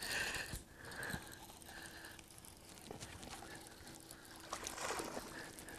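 Quiet open-water ambience: faint water lapping with a few small clicks and handling noises from the rod and reel while a hooked fish is reeled in.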